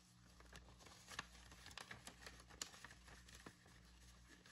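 Near silence with faint scattered rustles and soft taps of paper banknotes and a binder's envelope page being handled.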